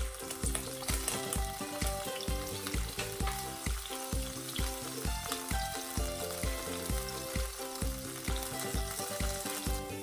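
Sweet potato chunks sizzling and crackling in a shallow layer of oil in a frying pan on medium heat. Background music with a steady beat of about two and a half thumps a second plays along.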